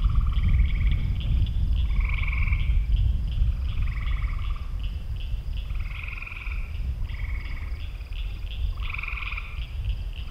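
A chorus of frogs calling: short trilled calls about half a second long, several voices overlapping and coming every second or so, over a faster, higher-pitched pulsing chorus. A steady low rumble runs underneath.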